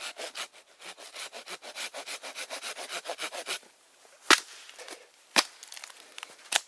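Folding saw cutting through a dead branch with quick back-and-forth strokes, stopping about three and a half seconds in. Then three sharp cracks about a second apart, the loudest sounds here.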